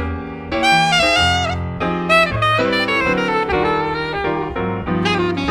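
Jazz saxophone and piano duo: the saxophone plays a quick melodic line with a bent note over the piano's chords and low bass notes.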